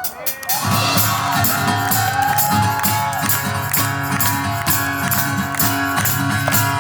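Live band playing a song's instrumental intro: drums keep a steady beat over bass, with a sustained lead melody line, kicking in about half a second in.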